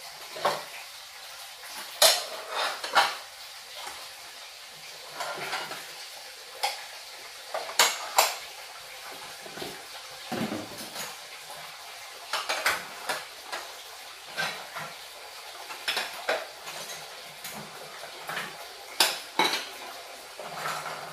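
Dishes and utensils clinking and tapping: irregular sharp clinks, a few each second at the busiest moments, over a steady faint hiss.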